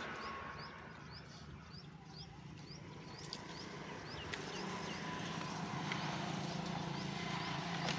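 A short high chirp repeats about twice a second for the first few seconds. From about halfway a steady low engine hum from a vehicle passing on the road grows louder, with a couple of sharp wooden knocks.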